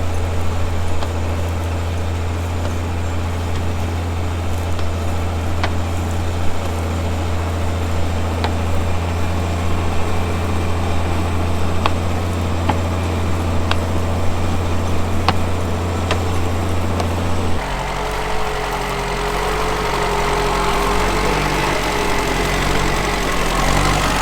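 Tractor engine idling steadily. About three-quarters of the way through, the sound changes abruptly to a lower hum with a thin whine above it.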